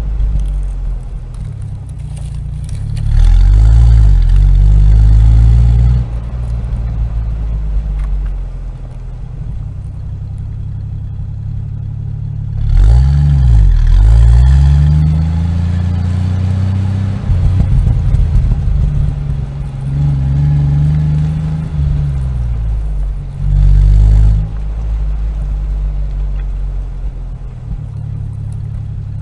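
Motor vehicle engine running and revving, its pitch rising and falling several times, with louder surges a few seconds in, about halfway through and again near the end.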